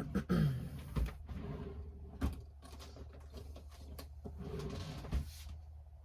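Hands working ribbon and a hot glue gun on a craft table: scattered soft knocks and clicks with rustling in between, over a steady low hum.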